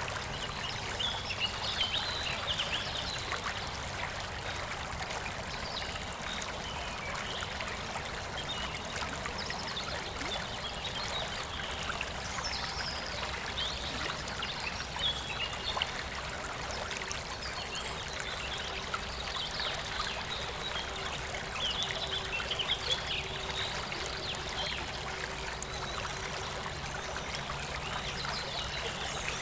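A small river or stream flowing and trickling steadily over stones, with birds chirping and singing in short bursts every few seconds.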